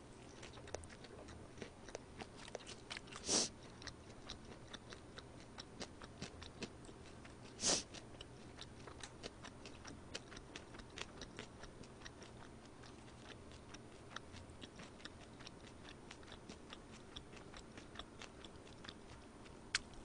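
Close-miked eating: chewing and many small wet mouth clicks, fairly faint, with two short louder rushes of noise about three and eight seconds in.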